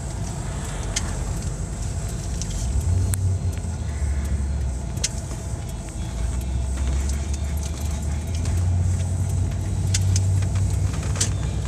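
Engine and road noise inside the cab of a moving vehicle, a steady low rumble that swells slightly a few times, with a handful of light clicks and rattles from inside the cab.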